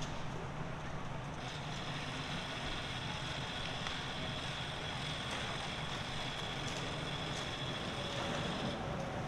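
Vehicle engines idling with wind on the microphone. A steady high-pitched whine starts about a second and a half in and stops near the end.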